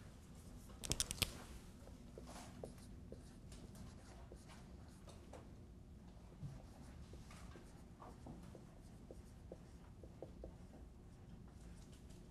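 Dry-erase marker writing on a whiteboard: faint, scattered squeaks and taps as the letters are written. A quick cluster of sharp clicks comes about a second in.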